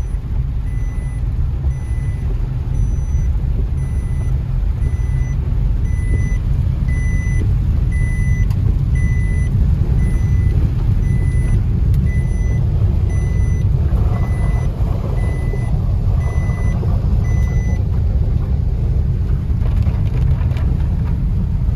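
Car driving slowly on a waterlogged road, heard from inside the cabin: a steady low rumble of engine and tyres. Over it, an electronic dashboard warning beep repeats about once a second and stops a few seconds before the end.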